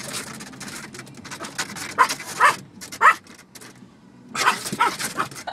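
Yorkshire terrier barking in short, high yaps at the moving windshield wipers that irritate her: a few sharp barks about two and three seconds in, then a quicker run of them near the end.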